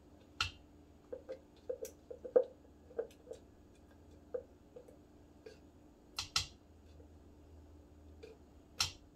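Spoon scraping and tapping inside a plastic cup of coconut milk as it is spooned out: scattered small clicks with a few sharper taps, two close together about six seconds in and one near the end.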